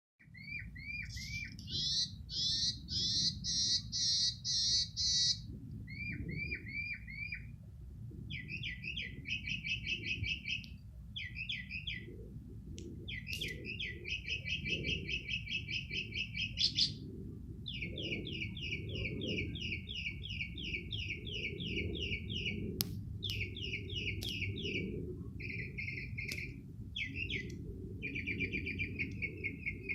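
A songbird singing a long, varied song: phrase after phrase of quickly repeated notes and trills, the note type changing every second or few. A steady low rumble sits underneath.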